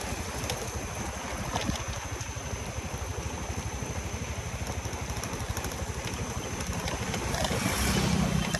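Small motor scooter engine running at a steady riding pace, mixed with wind and tyre noise on a paved path; it gets louder near the end.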